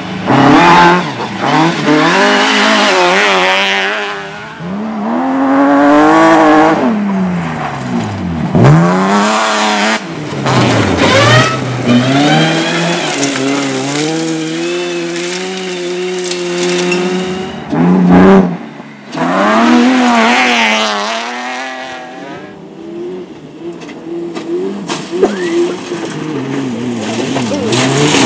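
Rally car engines revving hard under acceleration, the pitch climbing and dropping again and again with gear changes and cars going past, with some tyre squeal.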